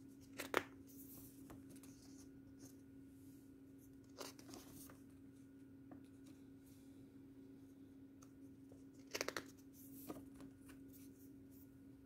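Pages of a paper CD lyrics booklet being turned by hand: short papery rustles and flaps, the loudest about half a second in, then others about four seconds and nine seconds in. A faint steady hum runs underneath.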